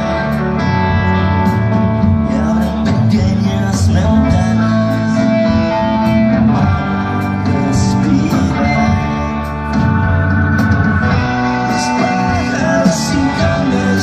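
Live rock band playing a song at full volume: electric guitars over bass and drums, with cymbal hits throughout.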